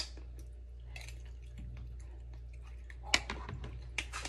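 A person chewing a mouthful of meatloaf, with wet mouth clicks and lip smacks, over a steady low hum; a quick run of sharp clicks comes near the end.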